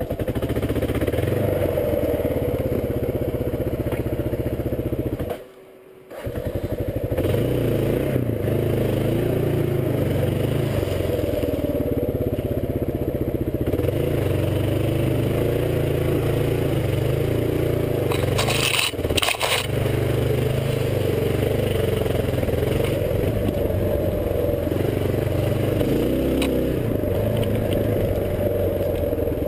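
Kawasaki KLR650 single-cylinder motorcycle engine running steadily while riding along a muddy trail. The sound drops out for about a second about six seconds in, and there are a few sharp clicks about two-thirds of the way through.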